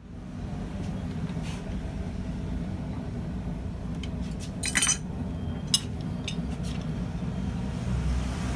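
Metal clinks of an adjustable twisting wrench being set onto a hot steel bar clamped in a vise, the loudest a short cluster a little before halfway and a single click soon after, over a steady low rumble.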